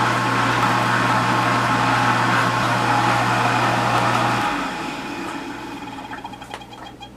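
Vintage KitchenAid KDS-18 Supurba dishwasher running with a steady motor hum and hiss, then cutting out abruptly about four and a half seconds in as the cycle stops short, leaving a fading wash and a few faint ticks near the end.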